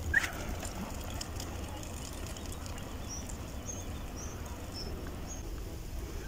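Outdoor ambience of a steady low rumble with small birds chirping: a run of short, high chirps about two a second through the middle. A brief, sharp falling squeak right at the start is the loudest sound.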